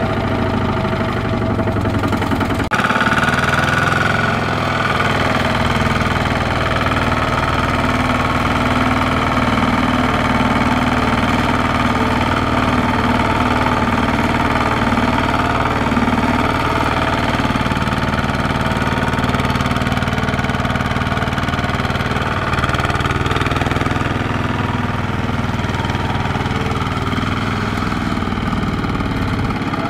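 Kubota RT120 walking tractor's single-cylinder diesel engine running steadily while pulling a trailer loaded with rice sacks through soft, muddy field ground. The sound changes abruptly about three seconds in.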